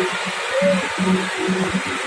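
A heavy diesel truck's engine running close by on a climb: a steady loud rush with a throbbing low note underneath.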